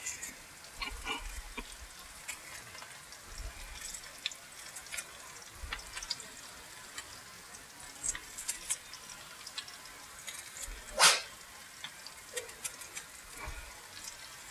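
Sliced yellow squash frying in oil in a skillet, faint with scattered small crackles and pops, while an onion is cut by hand with a knife into the pan. One short, louder sound comes about eleven seconds in.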